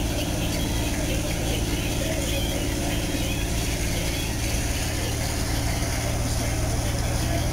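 The engines of a dump truck and an asphalt paver running steadily, a constant low mechanical drone, as asphalt is loaded into the paver.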